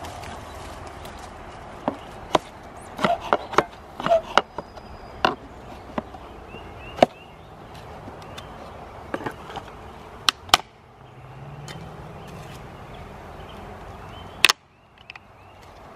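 Wooden slats being pried off two bee shipping packages with a flat metal tool: a string of sharp, irregular wooden cracks and knocks as the nailed crossbars give way, with one last loud crack near the end.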